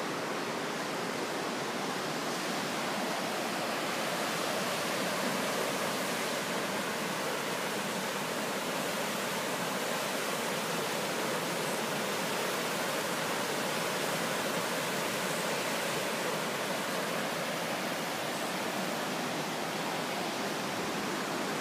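Steady rushing of the Kikuchi River in flood after torrential rain, with fast, muddy water running high through the weir.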